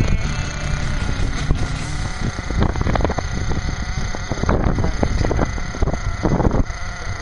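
Small two-stroke nitro glow engine of a 1/8 scale RC truggy running and revving up in short bursts a few times as the truck is driven.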